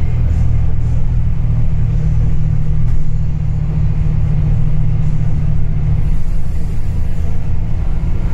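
Bus engine and road noise heard from inside the cabin while the bus drives: a steady, loud low rumble.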